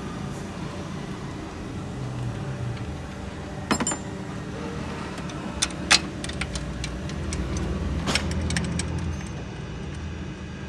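Metal hand tools clinking and tapping against engine parts: a few sharp clinks, the loudest about six seconds in, then a run of small ticks, over a steady low hum.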